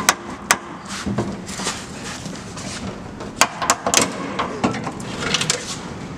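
Sharp clicks and knocks from hands and tools working on a stuck headlight assembly: a couple of single strikes early, then a quick cluster of several about three and a half to four seconds in.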